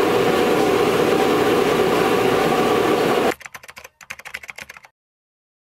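Steady drone of running factory machinery, which cuts off abruptly a little over three seconds in. A quick run of keyboard-style typing clicks follows for about a second and a half: a typing sound effect for on-screen text. Then dead silence.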